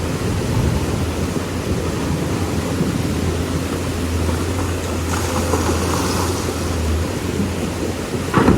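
Lonking excavator's diesel engine running steadily with a low hum, over the rush of river water. A brief louder clatter comes just before the sound cuts off.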